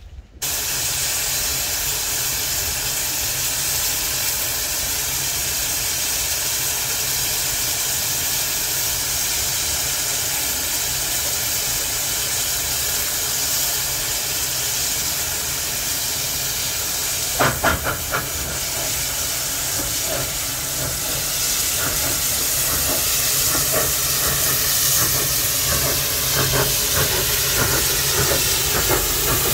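Narrow-gauge steam locomotive hissing steam loudly and steadily, with a short cluster of sharp clanks about halfway through.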